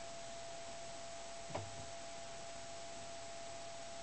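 Steady recording hiss with a thin, steady hum, and a single soft click about one and a half seconds in.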